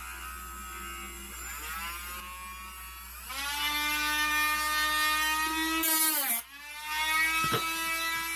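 Cordless Dremel rotary tool with a cut-off disc, its motor whine rising in pitch as it spins up, then running loud and steady while cutting wood. About six seconds in, the pitch drops and the motor almost stalls as the disc bogs down in the cut, then it speeds back up.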